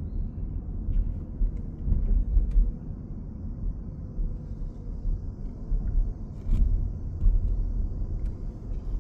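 A low, uneven rumble that swells and fades, with a few faint clicks.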